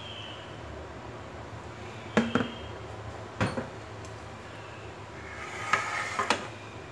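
Kitchenware handled on a counter: two sharp knocks about two seconds in and another about three and a half seconds in, then a ceramic plate clinking as it is set down near the end, over a steady low hum.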